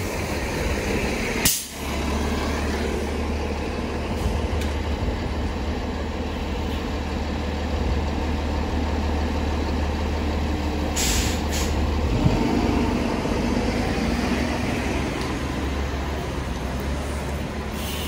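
Diesel transit bus engine running with a steady low drone, with short sharp hisses of air brakes: one about a second and a half in and a longer one about eleven seconds in.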